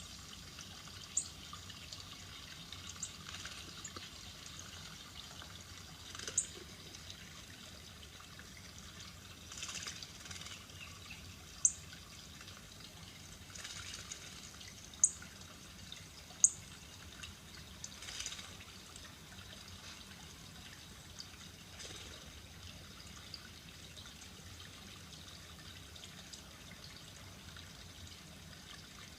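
Sporadic short, high bird chirps, each falling slightly in pitch and the loudest sounds here, over a steady trickle of water, as played through an iPad's speaker from a bird video.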